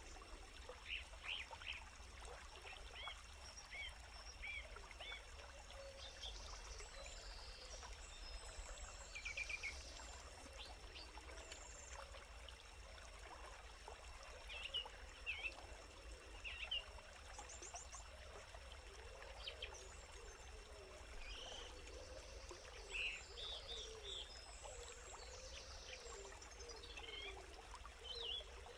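Faint outdoor ambience: short chirping bird calls come and go over a steady hiss, with a few soft clicks.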